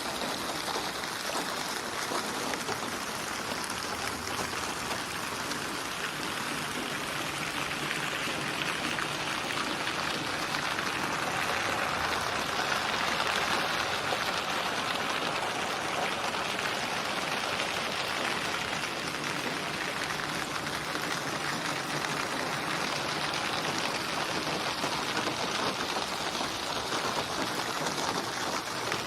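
Steady rain falling, an even hiss of many drops, swelling a little about halfway through.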